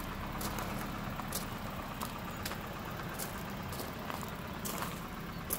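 Slow, uneven footsteps crunching on loose gravel, with a steady low hum underneath.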